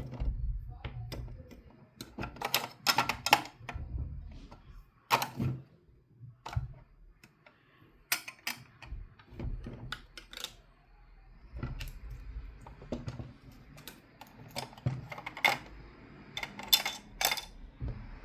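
Small plastic toy pieces clicking and knocking, tapped and set down one after another at uneven intervals as they are placed into a toy mini fridge.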